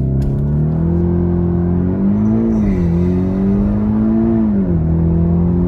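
The VW T-Roc R's 2.0-litre turbocharged four-cylinder accelerating hard, with a rising engine note that drops sharply twice as the DSG gearbox shifts up a gear.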